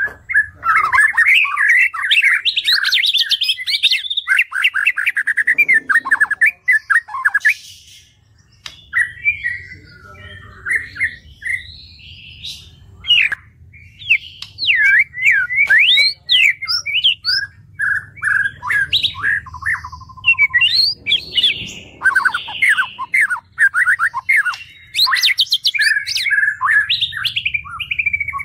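White-rumped shama (murai batu) singing: a fast, varied run of chattering phrases and sweeping whistles, broken by short pauses about a third of the way in, over a faint low hum.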